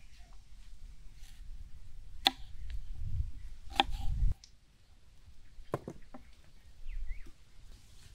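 Three sharp knocks of kitchen work, spread over a few seconds, over a low rumble that cuts off suddenly about four seconds in.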